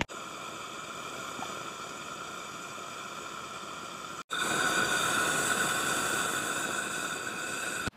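Camp stove's gas burner, boosted by a gas fitter to about 30,000 BTU, running at full flame under a large pot of water: a steady hiss with a faint whistle in it. It breaks off for an instant about four seconds in and comes back louder.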